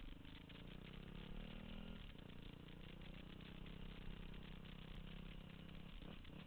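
Motorcycle engine running, picked up by a helmet-mounted camera, with a steady note that drops about two seconds in and shifts briefly again near the end, over a constant rattly hiss.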